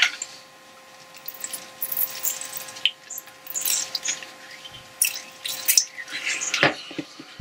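Trigger spray bottle squirting automotive clutch and brake cleaner onto a small lathe gear in several short hissing squirts, the fluid splashing and dripping into a pot below as swarf is washed out of the teeth. A sharper knock comes near the end.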